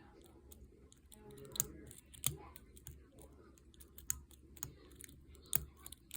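Homemade lock pick working inside a padlock: faint scraping with scattered sharp metallic clicks, the loudest about one and a half, two and a quarter, and five and a half seconds in.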